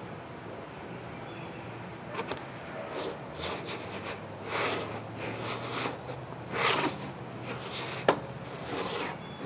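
Sneaker soles scuffing and rubbing on wooden deck boards as the feet shift and step, in several short scrapes, with one sharp tap about eight seconds in.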